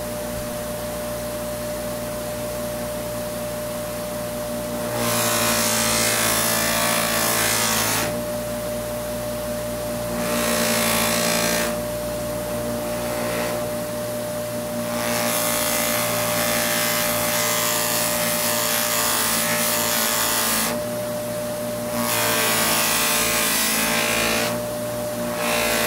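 Bench buffer motor running with a steady hum while a carved wooden slingshot fork with a CA glue finish is held lightly to its spinning loose-leaf buffing wheel. Each pass against the wheel brings a louder rubbing hiss, several times over, lasting one to six seconds each.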